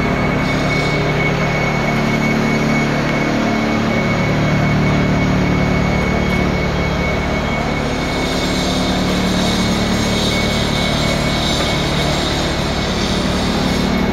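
Steady industrial machinery noise: a constant low hum under a broad rushing noise, with a thin high whine held steady over it.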